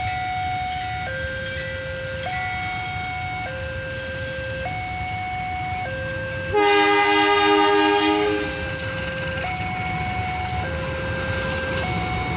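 A KAI CC201 diesel-electric locomotive sounds its horn once, a chord lasting about a second and a half just past halfway, over the low rumble of the train moving. Throughout, a two-tone electronic warning alarm alternates a higher and a lower note, each held about a second.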